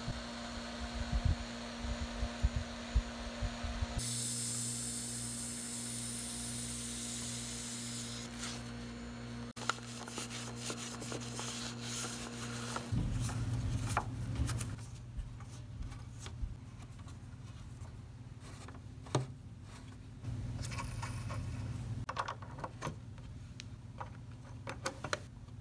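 Steady hum from a running Roberts 1725 tube reel-to-reel recorder, overlaid with cloth rubbing and scattered clicks as the meter window is wiped and the control levers are worked.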